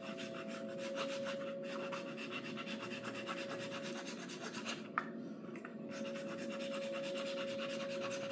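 Hand file rasping on a 3D-printed high-temperature resin fixture peg in quick, even strokes, filing it down to fit the welding table's holes. The strokes break off about four seconds in, with a single click, then resume. A steady hum runs behind them.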